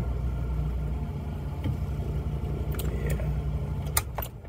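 1990 Honda Civic Wagon's four-cylinder engine idling steadily, with a few sharp clicks from the car. About four seconds in there is a loud click and the engine cuts off.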